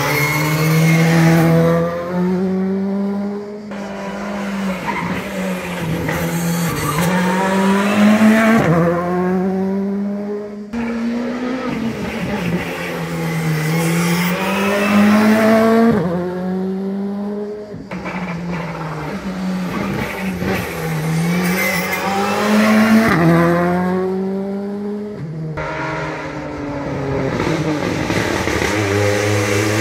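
Rally cars taking a hairpin one after another, each engine revving hard and climbing in pitch through its gears as it accelerates away, the pitch dropping at each upshift.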